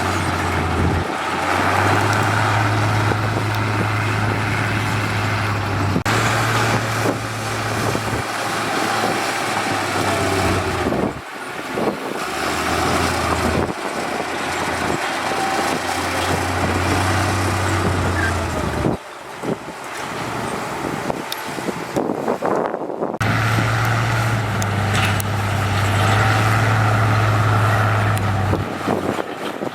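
Heavy road-construction machines running, a steady low diesel engine hum with the noise of the work over it, changing abruptly several times.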